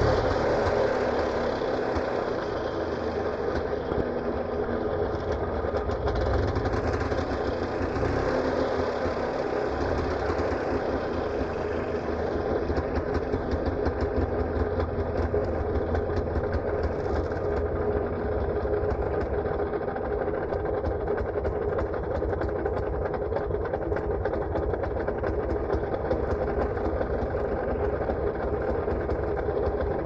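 Auto rickshaw engine idling steadily, with an even, rapid putter.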